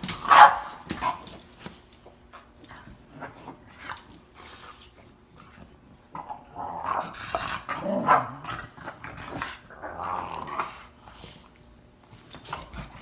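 Dog grumbling and growling in rising and falling moans while being dried off, with a loud outburst just after the start and a longer run of grumbles in the second half.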